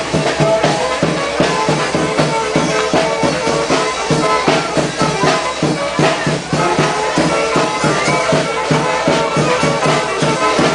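Loud dance music with a steady drum beat under sustained instrumental notes.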